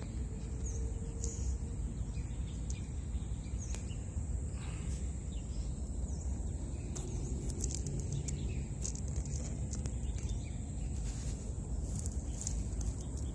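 Outdoor field ambience: a steady high-pitched insect trill with scattered bird chirps over it, and a louder low rumbling noise on the microphone.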